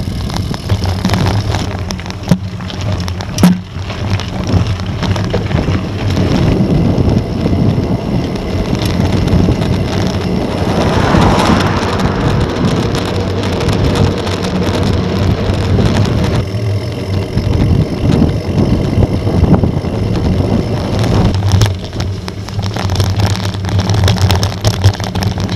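Wind buffeting the microphone during a mountain bike ride, with the steady rumble of knobby tyres rolling over a dirt track and a couple of sharp knocks from the bike a few seconds in.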